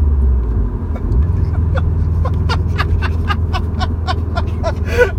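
Subaru WRX STI's turbocharged flat-four engine droning low inside the cabin just after a shift into fourth gear, its note changing about a second in. Rhythmic laughter runs over it from about a second and a half in.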